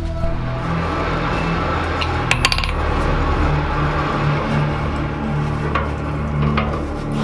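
Steady hum and rush of a lit blacksmith's forge. About two and a half seconds in comes a quick cluster of light metallic clinks, with a couple of single ticks later: hand tools touching the steel anvil.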